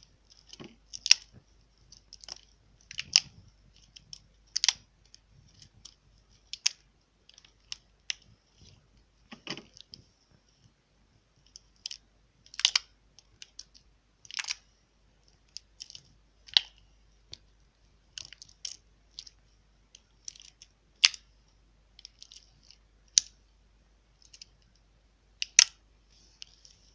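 Slime being squeezed and pressed by hand, making irregular sharp, wet clicks and pops, about one or two a second.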